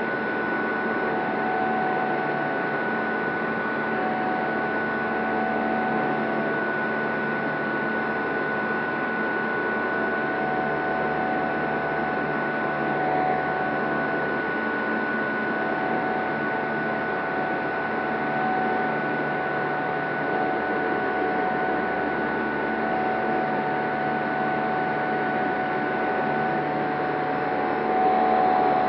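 Electric motor and propeller of a Sonex Xenos in cruise flight, heard in the open cockpit: a steady rush of wind and prop noise with a few fixed whines above it. A little louder near the end.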